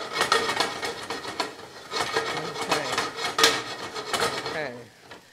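A spoon scraping and stirring sautéing onion and celery around a stainless steel skillet in quick, repeated strokes, stopping shortly before the end.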